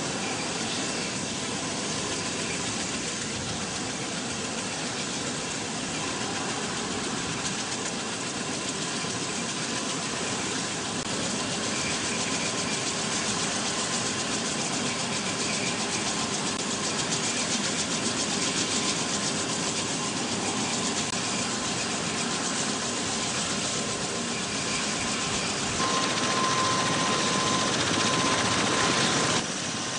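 V-22 Osprey tiltrotor's engines and rotors running steadily: a steady rushing noise with a thin, constant whistle-like tone. About four seconds before the end it turns louder and brighter, then drops suddenly just before the end.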